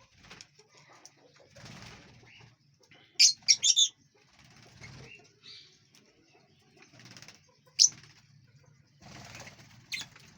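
Lovebirds in an aviary: a quick burst of shrill chirps a few seconds in, then single sharp chirps later, with soft fluttering wingbeats in between.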